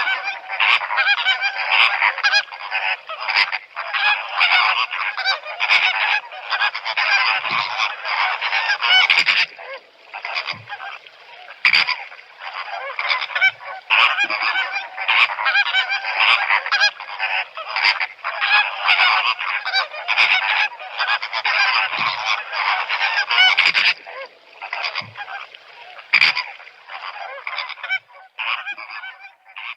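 A flock of flamingos honking: a dense, continuous chorus of overlapping goose-like calls that thins out just before the end.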